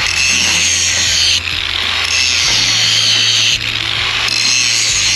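Grinder cutting into steel weld, starting abruptly with a loud, harsh hiss and easing briefly about a second and a half in and again a little past three and a half seconds as the disc's bite changes. It is cutting around the edge of a 1.25-inch solid steel fitting welded to a ship's steel hull.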